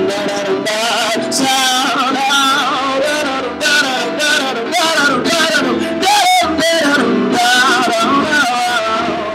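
A man singing wordless ad-lib runs, his voice swooping quickly up and down in pitch, over steady instrumental accompaniment.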